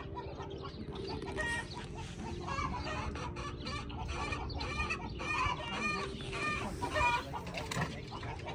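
Backyard poultry clucking: a run of short, repeated clucks, busiest from about one and a half seconds in until near the end.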